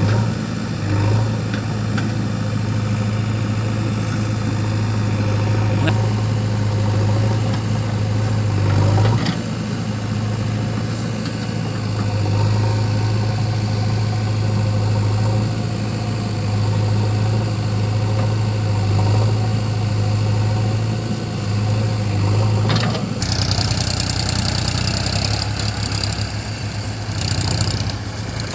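Diesel engines of a backhoe loader and a tractor running steadily at low revs, with a deep, even drone. About 23 seconds in, a higher hiss joins the engine sound.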